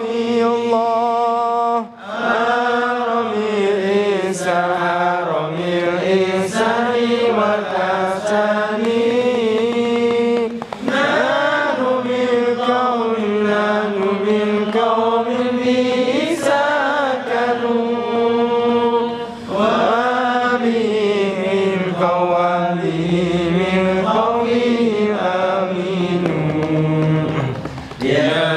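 A group of men chanting Arabic devotional verses together in long melodic phrases. Each phrase breaks off briefly for breath about every eight or nine seconds.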